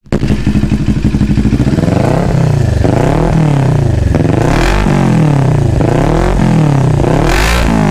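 CFMoto 400NK parallel-twin motorcycle engine run through a newly fitted Akrapovič muffler on a twisted elbow pipe with a resonator: idling steadily for about two seconds, then revved with several throttle blips that rise and fall in pitch.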